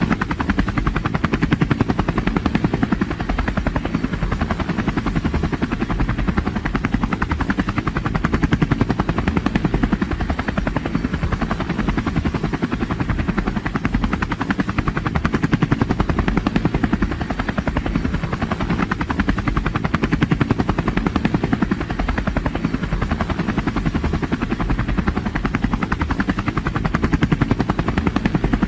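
Helicopter rotor beating in a steady, rapid chop over engine noise, holding an even level throughout.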